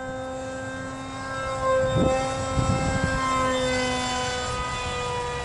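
Electric brushless motor (Heads Up RC Zoom 450) spinning a 6x3 propeller on a foam RC plane in flight: a steady, many-toned whine whose pitch drifts slightly as the throttle changes. It grows louder about two seconds in.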